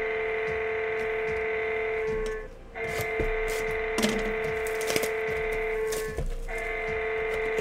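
Background music holding one steady note, broken by two brief gaps. Scattered sharp clicks and crackles of packs being handled sound over it.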